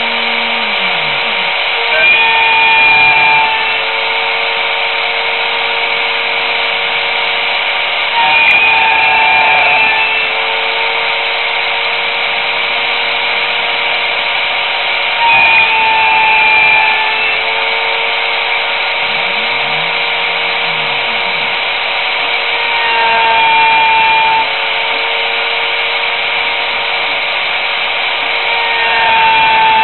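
Homemade mini CNC router running: a steady motor whine over a band of noise, with a louder stretch about every seven seconds.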